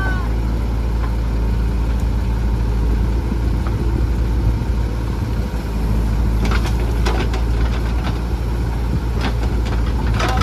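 The diesel engine of a JCB 3DX backhoe loader runs steadily as its backhoe arm digs and lifts a bucket of mud, mixed with a tractor's engine idling. A few short knocks come about six and a half seconds in.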